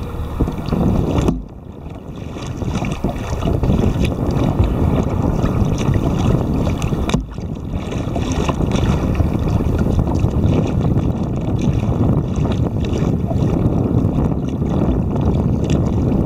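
Wind buffeting the microphone of a bow-mounted camera on a kayak, a dense low rumble, with waves slapping and splashing against the hull. The rumble drops sharply about a second in and again about seven seconds in, then builds back.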